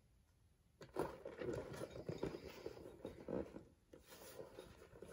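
A boxed toy train set being handled and shifted: cardboard and plastic wrapping rustling and scraping in a dense crackly run that starts about a second in, with a short lull near the end.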